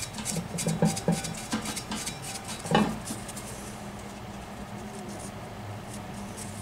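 A lead-test swab scraped and tapped against the inside of a cast iron pot, a run of short scratches and clicks. It stops about three seconds in, leaving a faint low hum.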